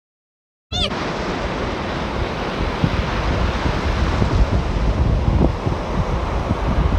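Sea surf washing on a beach, with wind buffeting the microphone in low thumps. It cuts in abruptly from dead silence about a second in.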